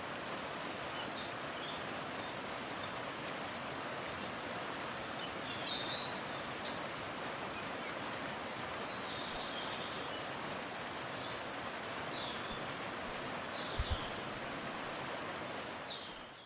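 Steady rushing of a mountain stream, with small birds chirping in short high calls throughout. A couple of soft low thumps come near the end.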